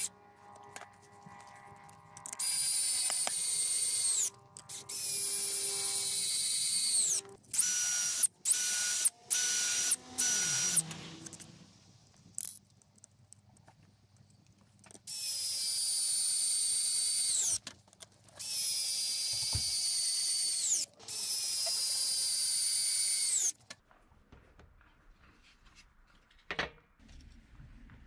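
Electric drill running into wood in repeated bursts, each a few seconds long. Its high whine sags slightly under load and winds down when the trigger is released. A quick series of short trigger blips comes in the middle, and one sharp click comes near the end.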